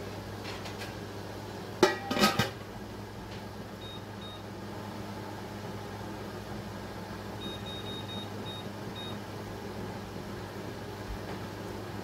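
A short metal-on-enamel clatter about two seconds in as the jar rack and lid go onto a granite-ware water-bath canner, then an electric range's keypad beeping as its timer is set: two short high beeps, then a quick run of about six. A steady low hum underneath.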